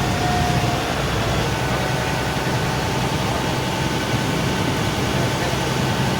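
A motor engine running steadily, a low drone with a faint steady whine above it.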